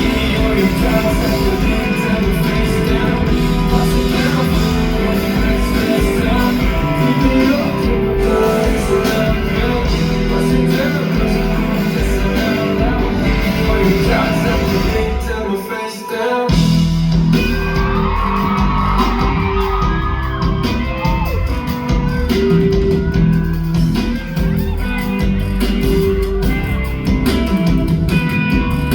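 Live pop song over loud amplified music: a male singer's voice with backing instruments, carried through a venue's PA. The music drops out briefly about halfway through, then carries on until it ends near the close.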